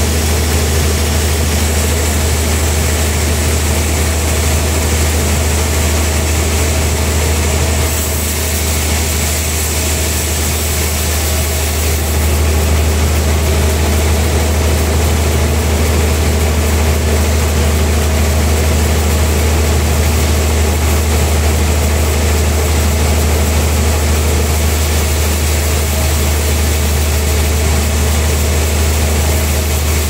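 Large band sawmill running steadily, its blade cutting through a big trembesi (rain tree) log: a constant low machine hum under a sawing hiss. It eases slightly about eight seconds in and picks up again a few seconds later.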